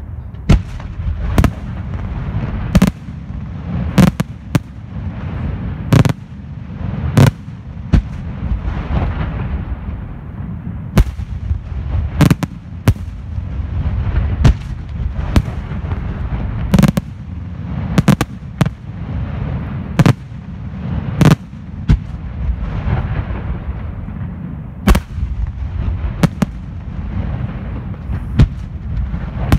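Aerial fireworks display by Senatore Fireworks: shells bursting in a steady series, with sharp bangs about every second or so over a continuous low rumble.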